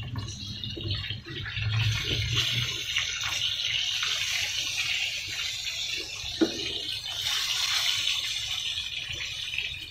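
Tilapia frying in hot oil in a pan, a steady high sizzle, with one sharp knock about six seconds in as the fish is handled with tongs.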